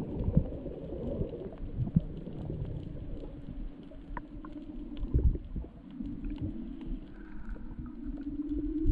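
Muffled underwater sound picked up by an action camera in its waterproof housing: a low rumble of water movement with irregular soft thumps and scattered faint clicks.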